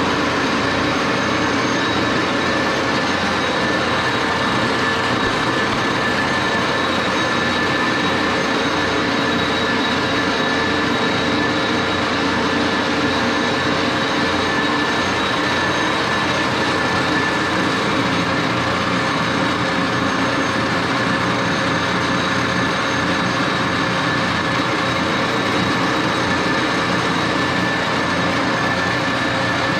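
1941 Axelson engine lathe running under power: a steady mechanical drone of turning gears, with several constant whining tones.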